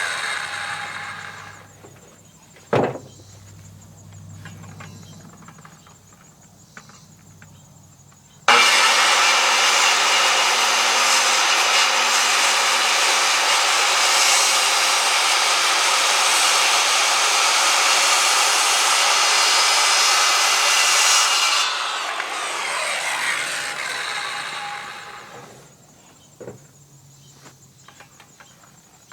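Two-stroke gas chainsaw idling, with a single knock about three seconds in. At about eight seconds it goes to full throttle and saws through a wooden beam for about thirteen seconds, then winds back down to idle, with another knock near the end.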